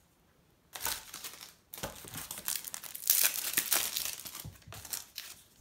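A Match Attax trading-card packet's wrapper being torn open and crinkled by hand: a short burst of crinkling about a second in, then steady crinkling and tearing that is loudest around the middle.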